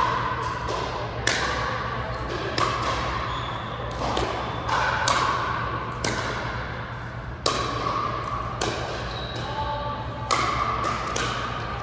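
Pickleball rally: sharp pops of paddles striking the hollow plastic ball, about one every second, each with a ringing echo off the walls of a large gym.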